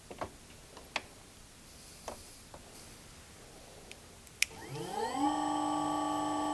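Keypad buttons on an Invertek Optidrive E2 variable speed drive click a few times, then a sharper switch click. The drive starts a small AC motor: an electric whine of several tones rises quickly in pitch for about half a second and settles into a steady whine as the motor reaches 50 Hz on a fast 1-second acceleration ramp.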